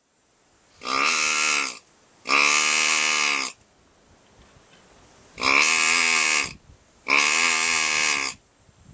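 Four loud, drawn-out pig calls in two pairs, each about a second long.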